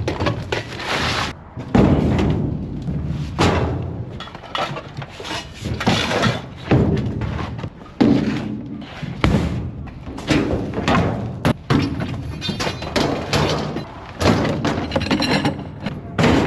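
Junk being handled and thrown during a clear-out: repeated thuds, bangs and clatter, a hit every second or two with scraping and rattling in between.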